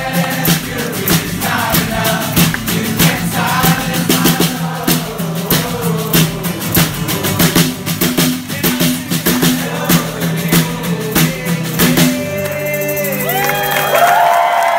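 A rock band performing live: several voices singing together over acoustic guitar and a steady beat. About twelve seconds in, the beat stops and the voices hold long final notes that slide upward.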